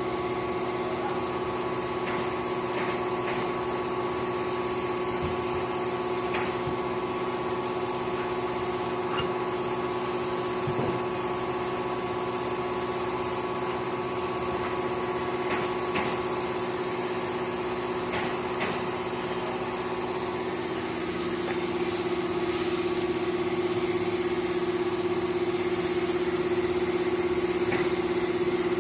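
Industrial air compressor running with a steady motor drone, growing somewhat louder about three-quarters of the way through.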